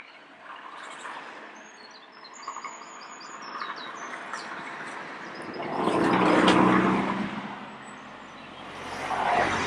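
Small birds chirping, with a car driving past that swells and fades about six and a half seconds in, and a second car coming up near the end.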